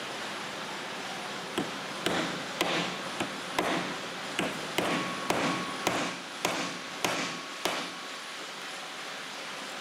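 Hammer blows crimping a metal rope clamp shut onto a rope on a wooden workbench: about a dozen sharp knocks, roughly two a second, each with a brief metallic ring, stopping near the end.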